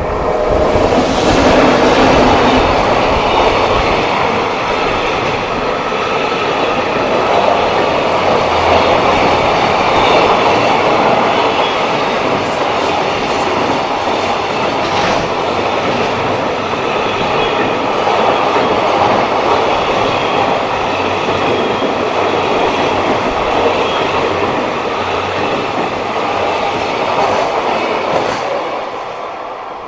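Freight train passing close by, a long string of wagons rolling over the rails with a steady clatter of wheels on rail joints. The noise fades near the end as the train passes.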